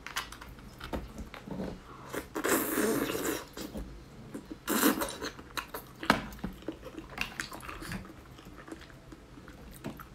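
Close-miked eating of beef bone marrow: a metal spoon clicking and scraping against split beef bones, and chewing. Two longer, louder noisy sounds come about two and a half and five seconds in.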